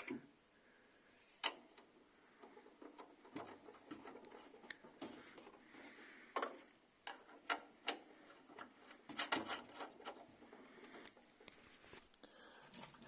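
Scattered small clicks and light knocks from handling a MIG welder's torch polarity lead and fastening it on its terminal, with a busier run of clicks about nine seconds in.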